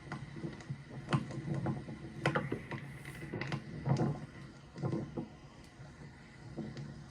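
Scattered faint knocks and clicks over a low background murmur.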